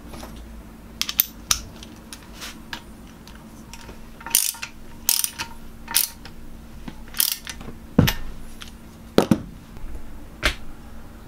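A hand tool clinking and scraping on the steel jaw of a cast-iron engineer's vice: a dozen or so sharp metallic clicks at irregular spacing, a few drawn out a little longer, over a faint steady hum.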